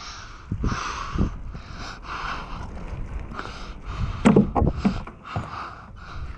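Full-suspension mountain bike rolling over pavement and onto a narrow plank skinny, its tyres and frame thumping and rattling, loudest at a clatter about four seconds in. The rider's quick breathing puffs along at a steady rhythm.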